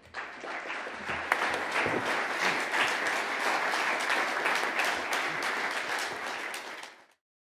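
Audience applauding steadily, a dense patter of many hands clapping, which cuts off abruptly about seven seconds in.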